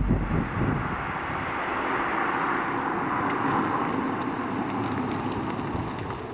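Fiat 500C small car driving by on a road, its tyre and engine noise swelling to a peak midway and then fading.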